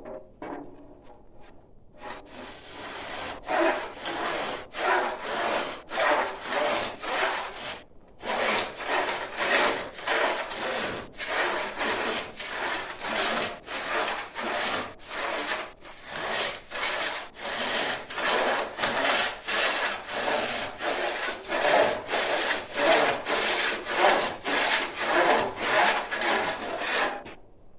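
Handsaw cutting ceramic fiber board in slow, steady back-and-forth strokes, about two a second, with a brief pause about eight seconds in.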